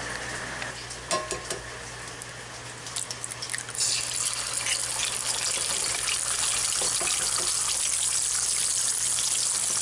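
Egg frying in hot oil in a cast iron skillet. A few sharp clicks of the shell cracking come in the first three and a half seconds, then a loud, steady sizzle starts about four seconds in as the egg hits the fat.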